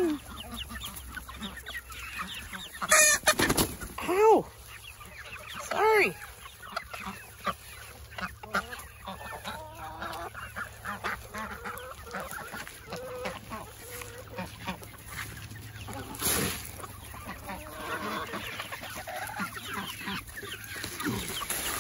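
A flock of backyard chickens clucking steadily, with three loud calls about three to six seconds in. A plastic bag crinkles near the end.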